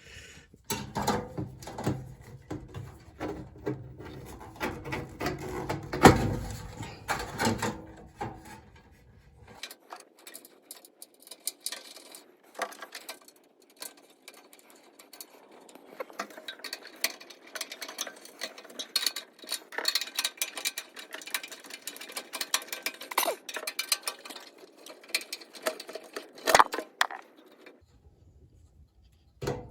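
Hand work reinstalling a furnace capacitor: irregular metal clicks, clinks and rattles as the part is fitted and its wire terminals are pushed back on. There is a sharp knock about 6 seconds in and another a few seconds before the end.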